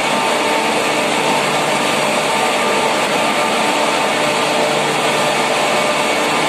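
Steady, loud whir of machinery running, an even rushing noise with a faint hum under it that does not change.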